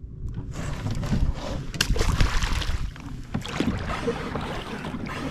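Water sloshing around a kayak on the open ocean, with wind buffeting the microphone and a sharp knock about two seconds in.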